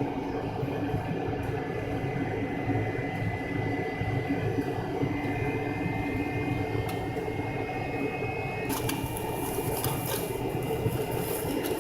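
Cabin noise inside an MD-83 airliner heard from a rear seat: the steady rumble and whine of its aft-mounted Pratt & Whitney JT8D turbofan engines. A little past two-thirds of the way through, the whine steps up in pitch and a hiss with faint clicks comes in.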